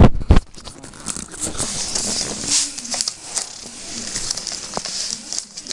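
Rolled newspaper tubes rustling and crinkling as they are woven between the stakes and pressed down by hand, with two loud knocks right at the start.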